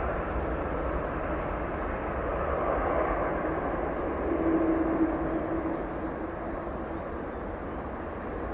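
Jet airliner engines during a landing: a steady rushing noise that swells about four seconds in, with a steady hum for a couple of seconds, then eases off.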